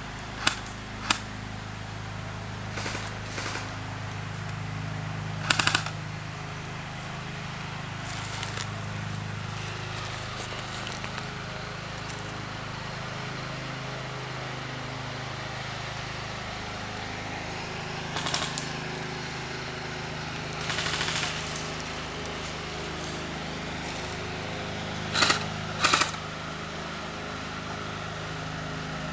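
Airsoft guns firing scattered single shots and short bursts, with a steady low hum underneath.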